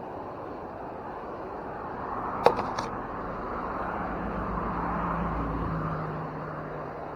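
Outdoor background noise with a sharp click and a few lighter clicks about two and a half seconds in, then a low engine hum that swells and fades as a vehicle passes.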